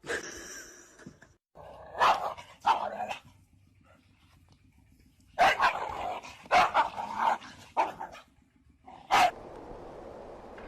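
A dog barking in separate bursts, with a quick run of several barks about halfway through.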